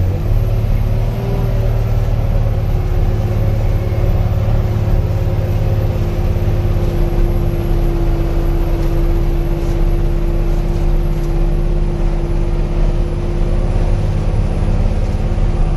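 A laden truck's diesel engine running steadily at an even pitch.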